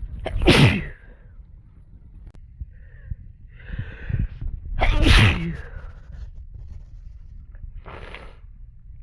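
A person sneezing twice, about four and a half seconds apart, with breaths drawn in before the second sneeze and a short breath near the end.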